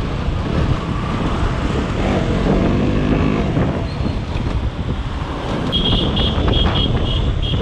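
KTM Duke 125 motorcycle being ridden through traffic: wind buffets the microphone over the steady note of its single-cylinder engine. Near the end there is a run of short high beeps, about three a second, from another vehicle's horn or alarm.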